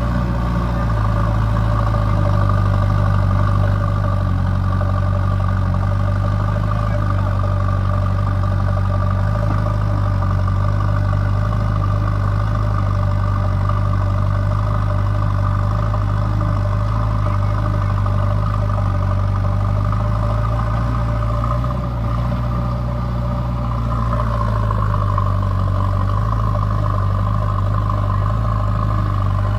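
JCB 3DX backhoe loader's diesel engine running steadily, a low hum with a steady higher whine over it. The whine shifts slightly about three-quarters of the way through.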